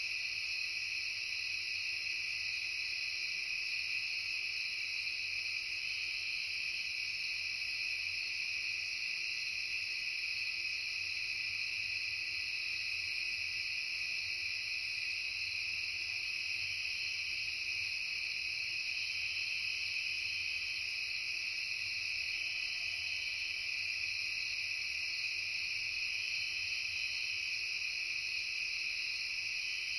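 Insects singing in a steady, unbroken chorus, a continuous high-pitched sound with no pauses or changes.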